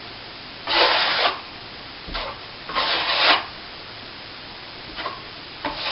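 Plaster patch on plasterboard being lightly sanded: two long rubbing strokes about two seconds apart, with a few short, fainter brushes between and after.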